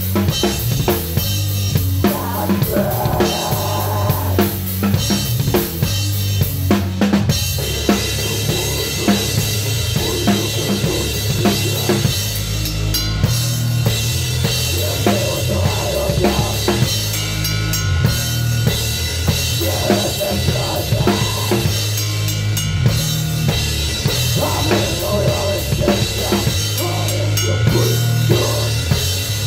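Mapex drum kit played hard and close up in a live band: bass drum, snare and cymbals struck continuously in a driving beat, over sustained low notes from the rest of the band.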